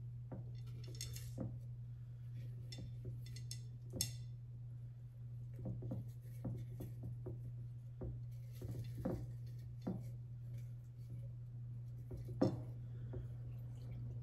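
Pearl beads and flowers being dropped and pushed into a tall glass vase: scattered small clinks, taps and rustles against the glass, the sharpest about four seconds in and again near the end, over a steady low hum.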